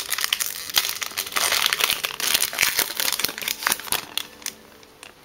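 Foil booster-pack wrapper crinkling densely as it is handled and opened, dying away about four and a half seconds in.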